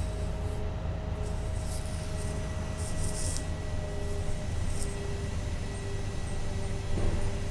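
LiAZ-5292.22 city bus heard from inside the passenger cabin while under way: a steady low drone with a faint whine running through it. There are short rattles in the first few seconds and a brief knock near the end.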